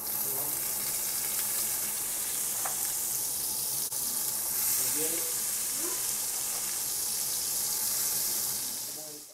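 Sliced onions, then bell pepper strips, sizzling in hot oil in a frying pan: a steady high-pitched hiss.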